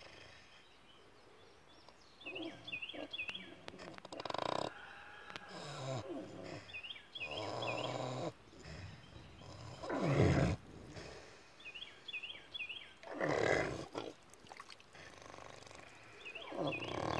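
Pigs snoring in their sleep: rough, deep snores recurring every few seconds, the loudest about ten seconds in.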